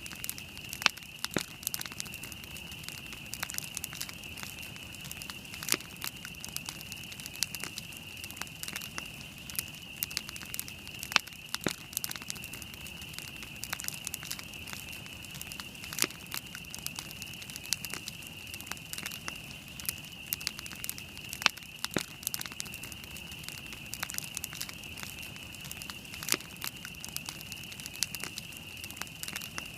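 Wood campfire burning, with frequent sharp, irregular crackles and pops over a steady high-pitched hiss.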